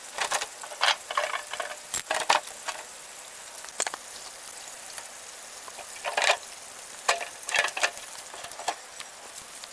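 Irregular light clicks, clinks and short rattles of small hard parts being handled, in scattered clusters with gaps between them.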